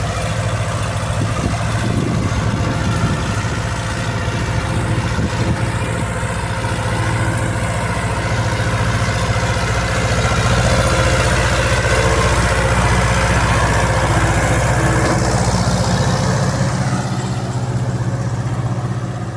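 Ursus tractor diesel engine running steadily with an even low drone, a little louder from about halfway through.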